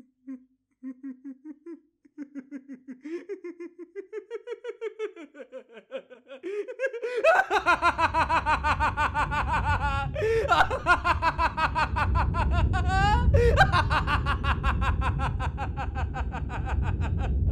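A man's maniacal laughter, beginning as a quiet low chuckle and building over several seconds into loud, higher-pitched cackling, with a low rumble underneath from about seven seconds in.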